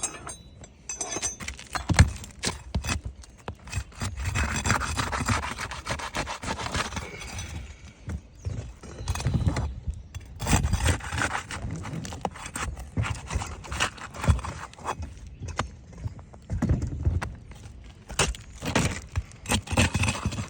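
Irregular scraping, rubbing and sharp knocks of work on an asphalt shingle roof: shingles and tools being handled and shifted during a shingle repair.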